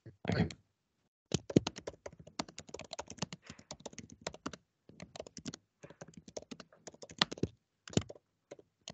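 Typing on a computer keyboard: a quick, irregular run of key clicks that starts about a second in, with a couple of short pauses.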